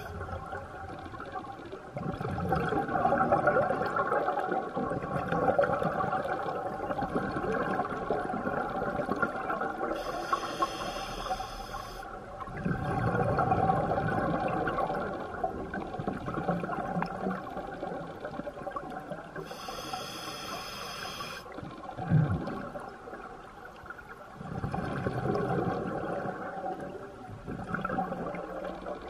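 Scuba diver breathing underwater through an open-circuit regulator: long stretches of bubbling exhaled air, broken twice by a short hissing inhalation, in a slow, even breathing rhythm.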